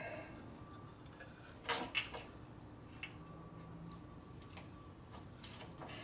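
A few small clicks and taps of a wire and tool being worked by hand into a tight spot on a motorcycle, three close together about two seconds in and a fainter one a second later, over a faint steady hum.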